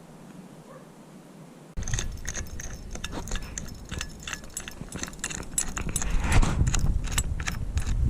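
Quiet room tone, then an abrupt cut about two seconds in to many quick metallic clinks and rattles: roof rack crossbars and clamps being handled. A low rumble lies under the clinking.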